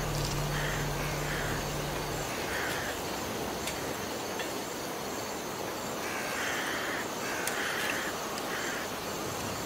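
Crows cawing: a few short, harsh caws in the first couple of seconds and another run of caws about six seconds in, over a steady hiss of outdoor ambience. A low hum cuts out about two seconds in.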